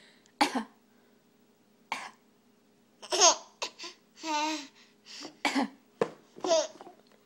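A series of short fake coughs from a baby imitating an adult, mixed with laughter. A little over four seconds in comes a brief warbling vocal noise.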